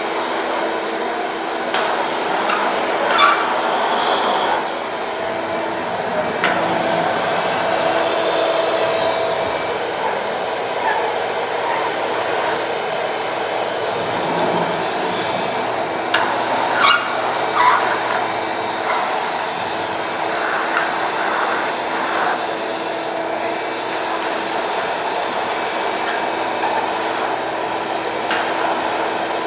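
A shop vacuum running steadily with a droning motor whine, with a few short knocks and clatters over it.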